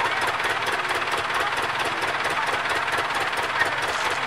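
Ford farm tractor's diesel engine running at a steady speed, a fast even chug with no change in pace.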